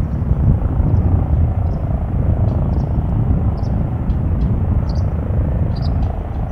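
Airbus Helicopters H145 in flight: a steady, dense rotor rumble with a faint wavering turbine and Fenestron tail-rotor whine above it.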